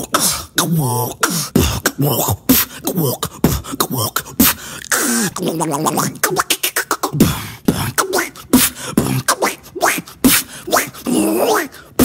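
A beatboxer imitating a robot with his voice and mouth in short clicks and gliding pitched tones, then switching partway through to an imitation of a duck.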